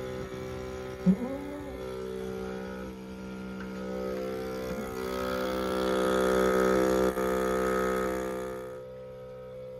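Electric goat milking machine's vacuum pump running with a steady hum. A hiss of air being drawn through the teat cups and tubing swells over the middle and cuts off suddenly near the end. There is a brief thump about a second in.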